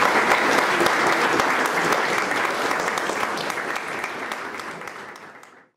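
Audience applauding, a dense patter of many hands clapping that slowly fades and cuts off shortly before the end.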